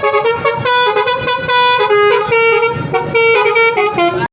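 Multi-tone 'telolet' air horn on a Dedy Jaya bus playing a quick melody of short, shifting notes.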